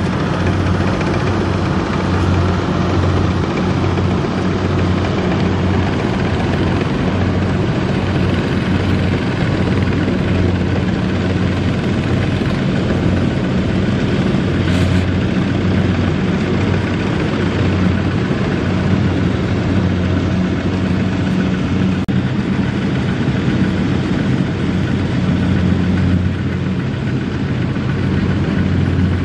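Kubota ZT155 single-cylinder diesel engine of a two-wheel walking tractor running steadily and loudly under load while the tractor is stuck in mud.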